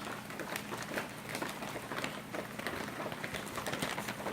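Thin plastic bag crinkling and rustling in irregular small crackles as MRE accessory packets are put back into it, over a faint steady low hum.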